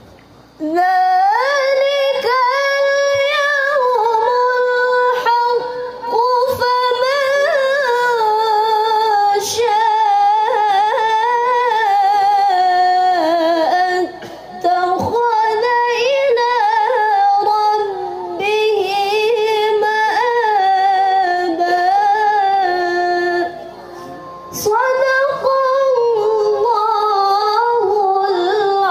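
A young woman reciting the Quran in the melodic tilawah style into a microphone, unaccompanied: long, ornamented held notes in three phrases, with short breath pauses about 14 and 24 seconds in.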